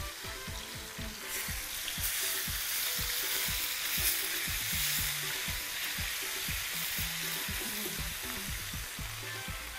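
Hot oil and stew base sizzling in a frying pan while a wooden spatula stirs it. The sizzle grows louder about a second or two in and then holds steady.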